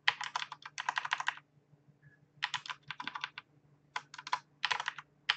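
Computer keyboard keys tapped in quick runs of several strokes, with short pauses between the runs, while text is edited. A faint steady low hum lies underneath.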